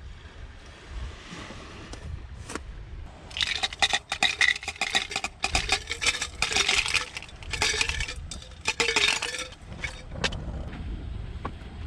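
Ice cubes clinking and rattling in a glass while iced coffee is made. The clinking comes in busy runs for several seconds, starting a few seconds in and thinning out near the end.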